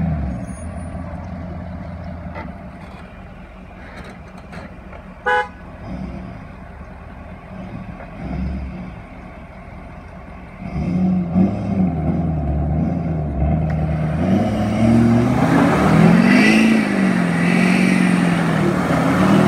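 Ford pickup truck's engine working under heavy load, revving up and down with a wavering pitch and getting much louder about eleven seconds in, as it drags a boat trailer up a muddy bank. A short horn-like beep sounds about five seconds in.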